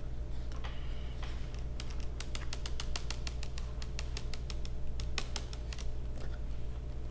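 A pen fidgeted in the fingers over a notebook: a quick, irregular run of light clicks, about five a second, starting about two seconds in and stopping near the end, over a low steady room hum.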